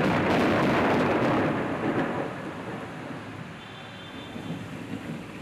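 A peal of thunder rolling and slowly dying away over steady rain; the rumble is loudest for the first two seconds, then the rain's even hiss remains.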